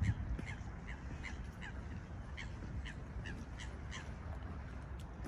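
Gulls calling over open water: a quick series of short, harsh, downward-falling calls, two to three a second, that stops about four seconds in.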